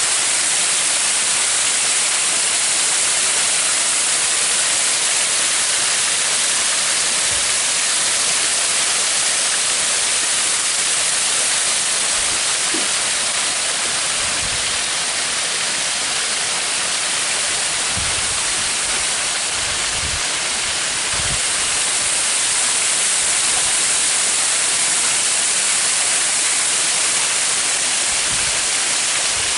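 Waterfall's steady, loud rush of falling water. A few soft low thumps sound through it in the second half.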